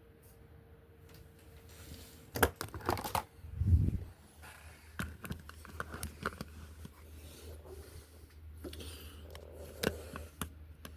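Plastic clicks and knocks of a 12-volt DC plug being handled and pushed into its socket, with a heavier thump about four seconds in. A low steady hum sets in just after the thump.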